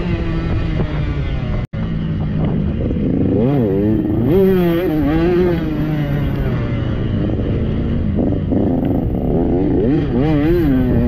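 Dirt bike engine heard from on board while riding a motocross track, revving up and down over and over as the throttle opens and closes. The sound cuts out for an instant a couple of seconds in.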